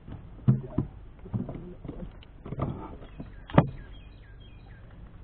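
Five dull knocks and thumps on a boat as gear is handled, the loudest about three and a half seconds in, while a small bird chirps over and over in the background.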